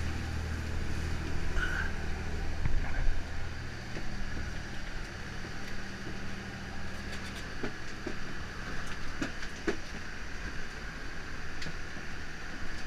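Perkins T6.354 turbocharged six-cylinder diesel of a trawler running steadily under way, a low even drone that drops back about four seconds in, under a wash of wind and water noise with a few short sharp knocks.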